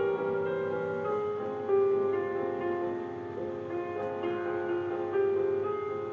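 Background music: a slow instrumental melody of held notes.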